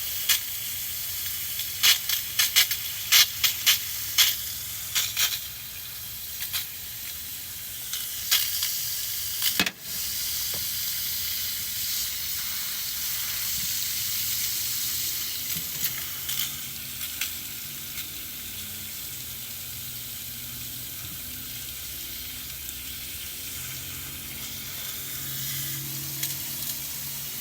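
1904 Ruud instant gas water heater running with its burners lit while hot water is drawn, giving a steady hiss with sharp crackles in the first few seconds, then an even hiss. The burners are clogged with crud and burn weakly.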